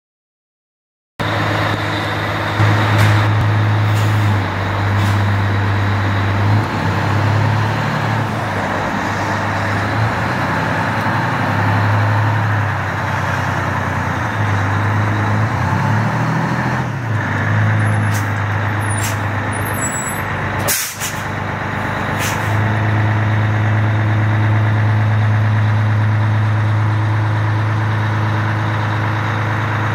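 Heavy fire-truck diesel, a Detroit Diesel Silver 92 two-stroke, running as the pumper pulls out. It starts about a second in, shifts in pitch through the middle and settles steady near the end, with a few brief sharp sounds over it, the strongest about two-thirds of the way through.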